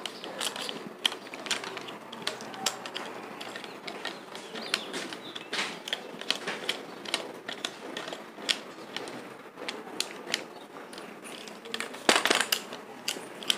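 Irregular small plastic clicks and rattles from a phone being fitted into a tripod's clip-on phone holder and the tripod head being adjusted by hand, with a brief louder scrape near the end.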